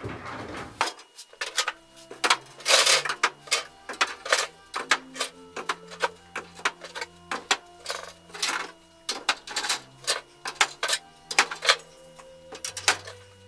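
Hand saws being hung back in a wall saw till one after another: a busy, irregular clatter of sharp clacks and knocks as the steel blades and wooden handles strike the till, the pegboard and each other.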